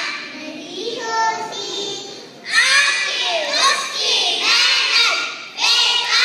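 A children's choir singing together in phrases, with a short break between phrases twice.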